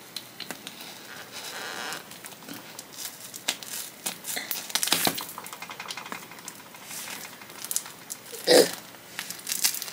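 A heavily wrapped shipping package being unwrapped by hand: irregular crinkling, rustling and tearing of the wrapping, with one louder noise near the end.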